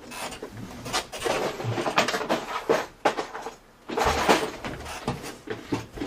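Someone rummaging for small parts containers: irregular knocks and clatters of small hard objects being picked up and moved about.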